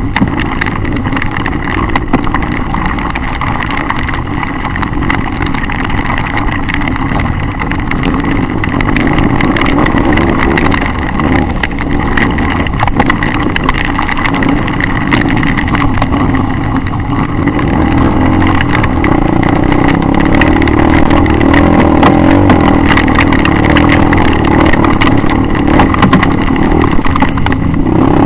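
Dirt bike engine running and revving under the rider on a rough trail, with steady rattling and knocking from the bumps, picked up close by the onboard camera. It gets louder from about two-thirds of the way in.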